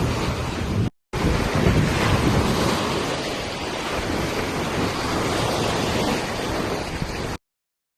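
Wind buffeting the microphone over a steady rushing outdoor noise, with a heavy low rumble. The sound drops out for a moment about a second in, then stops abruptly near the end.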